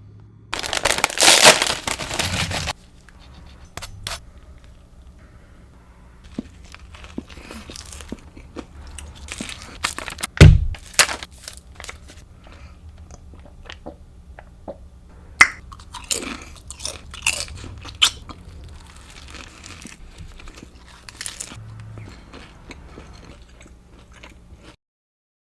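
A turkey club sandwich being bitten and chewed close to the microphone. A loud crunchy bite comes in the first few seconds, then chewing with crisp crunches and clicks and further crunchy bites. There is a sharp thump about ten seconds in, and the sound cuts off suddenly near the end.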